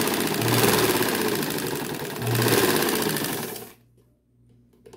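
Old black domestic sewing machine driven by a washing-machine motor, running and stitching fabric with a low motor hum under the rapid needle clatter, then stopping suddenly about three and a half seconds in.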